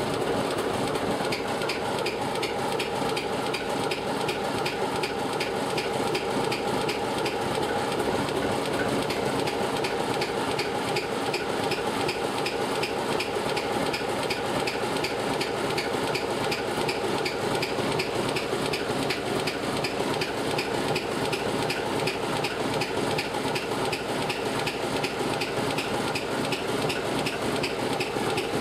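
DR class 107 (V 75) diesel-electric locomotive with its ČKD six-cylinder diesel engine idling steadily, a fast, even clatter over a running hum.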